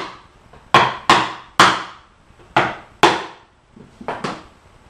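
Hammer blows on a block of wood held against a sheet-metal bearing carrier, tapping the snug-fitting carrier halves together: five sharp knocks in the first three seconds, then two lighter knocks near the end.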